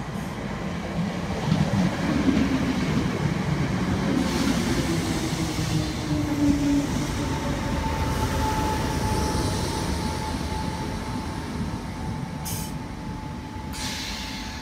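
Northern Class 319 electric multiple unit pulling into the platform and braking to a stop. A rumble and low drone sink slightly in pitch as it slows, a thin steady whine follows in the second half, and two short hisses come near the end.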